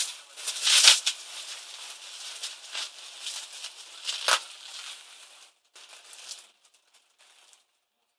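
Plastic packaging, bubble wrap and a thin plastic bag, crinkling and rustling as a laptop keyboard is unwrapped by hand, with two sharper crackles about a second in and about four seconds in. The rustling fades out after about six seconds.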